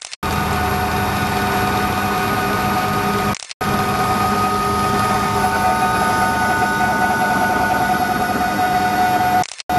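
Loud, steady cabin noise of a Helijet passenger helicopter in flight: engine whine and rotor drone with several steady high tones. The sound drops out briefly about a third of the way in and again near the end.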